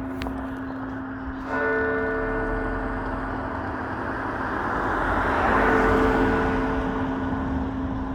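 St Colman's Cathedral bell tolling: one fresh stroke about one and a half seconds in, its tones ringing on and slowly dying away. A vehicle passes in the background, loudest about six seconds in.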